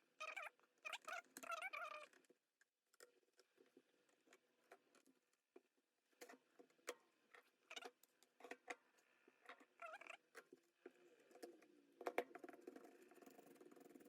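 Faint, scattered clicks and taps of a laptop being taken apart by hand: plastic case parts and drive components handled and pried. Thin high squeaks sound in the first two seconds and again about ten seconds in, and a sharper click comes near the end.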